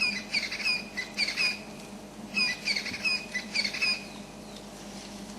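A bird calling: quick runs of short, sharp, slurred squawking notes, repeated several times and stopping about four seconds in.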